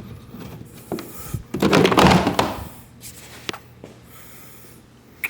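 Handling noise from the kayak's plastic fittings: a few sharp clicks and knocks and a scraping rustle lasting about a second.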